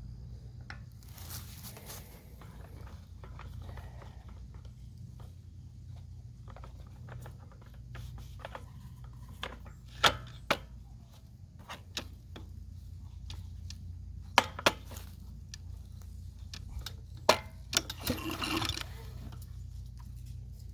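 Scattered sharp clicks and two brief rasps from hand work on a small engine's recoil starter and its new pull cord, over a steady low hum.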